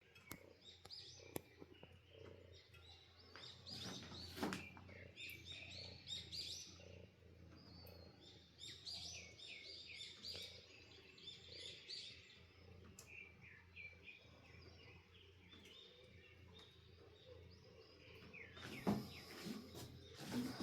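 Small birds chirping, faint: clusters of short, quickly repeated high chirps, with a few soft knocks or rustles near the end.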